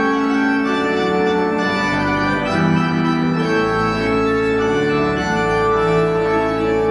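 Organ playing sustained full chords that change about once a second, with deep bass notes coming in about two seconds in: recessional music as the clergy process out.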